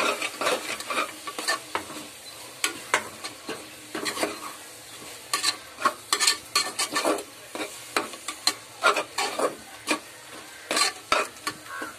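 A steel spoon stirring an onion-tomato masala with mint and coriander leaves in a metal pot: irregular scrapes and clinks against the pot over a low sizzle of the masala frying.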